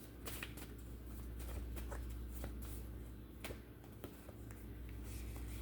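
Faint, scattered light clicks and short rustles of a deck of cards being handled, over a low steady hum.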